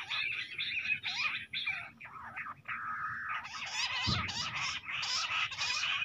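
Bush quail calling: a rapid chattering run of short, quickly repeated notes, some gliding down, growing fuller and higher-pitched in the second half. A dull low thump comes about four seconds in.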